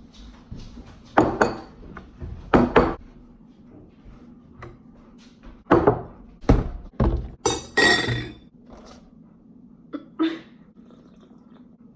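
Thunks and knocks of objects being handled and set down, about a dozen separate strikes, with a short burst of rustling crackle about eight seconds in.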